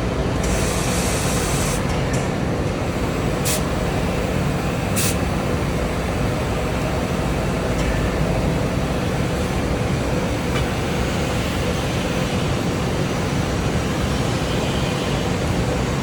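Oxy-fuel gas cutting torch running with a steady hissing rush. A sharper hiss comes in about half a second in and lasts about a second, and two short ticks follow a few seconds later.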